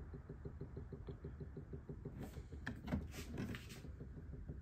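Light clicks and knocks of a plastic ink bottle being handled where it sits upside down on a printer's ink tank, clustered in the middle, over a faint quick low pulsing.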